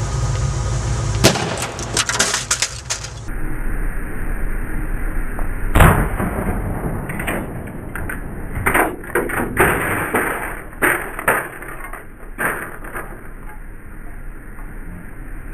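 A homemade CO2-cartridge bomb going off inside a microwave: one sharp bang about six seconds in. Several seconds of scattered sharp cracks and clatter follow as glass and metal pieces break and land.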